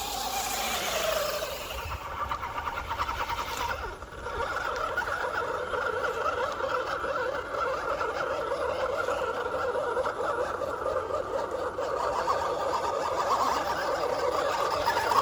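1/10-scale six-wheel-drive RC truck's electric motor and geared drivetrain running under throttle: a steady whine with a fast rattling chatter. It dips briefly about four seconds in, then carries on.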